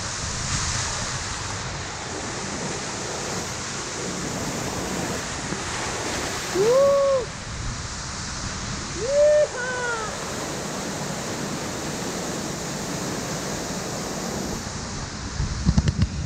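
The Cola de Caballo waterfall close up: a steady rush of falling water and spray against the microphone. About seven and nine seconds in, a man's voice gives two short whoops that rise and fall, and near the end there are a few knocks of the camera being handled.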